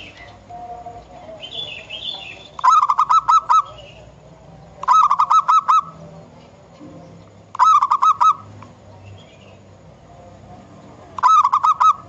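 Zebra dove (perkutut) singing: four bursts of rapid, rolling coos, each under a second long and a few seconds apart.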